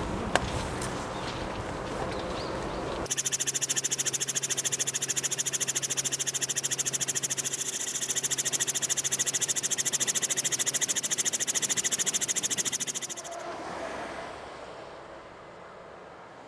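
Helicopter noise heard from on board: a loud, very rapid and steady rotor pulsing with a high whine, starting abruptly about three seconds in and fading out about thirteen seconds in. Before it there is even outdoor background noise with one sharp click; after it, a quieter low hum.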